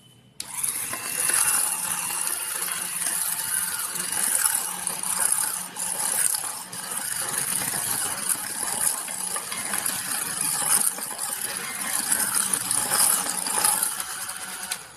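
Electric hand blender running in a glass of eggs and butter, the blade head churning the mixture against the glass. It starts about half a second in and stops just before the end.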